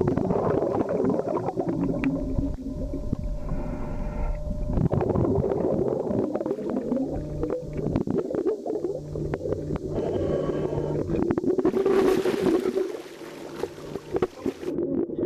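Muffled underwater rumbling and gurgling of bubbles and churning water, heard through a submerged microphone in a swimming pool as a handcuffed man struggles below the surface. A broad hissing rush of water comes about three-quarters of the way through, then the sound falls away.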